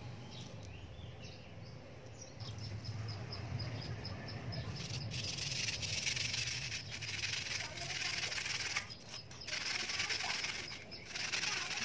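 Steel-wool pad scrubbing a wet, soapy copper circuit board, a rough scraping that comes in strokes with short breaks from about five seconds in, as the toner is rubbed off the etched traces. Before that, a quick run of faint high ticks.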